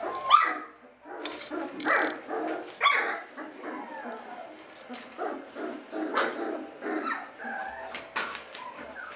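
Young Belgian Shepherd Malinois puppies whimpering and yipping in short, high, sliding cries. The loudest is a rising squeal just after the start.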